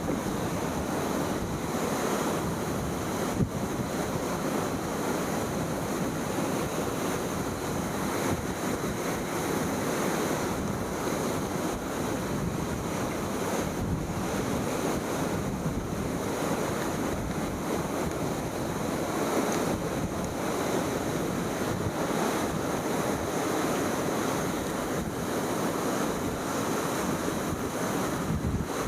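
Strong wind buffeting the microphone on the open deck of a moving ship, over the steady wash of waves along the hull. The noise holds at an even level throughout.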